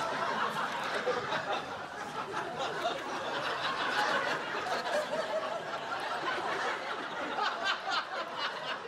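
Many people laughing and chattering at once, a steady wash of laughter with scattered sharp snickers and cackles.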